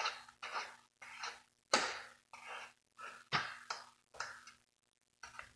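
Saw chain being worked by hand around a chainsaw bar, a series of short metallic scrapes and clicks with brief gaps between them, the two loudest about two and three and a half seconds in. The chain is being checked for tension and may be adjusted too tight.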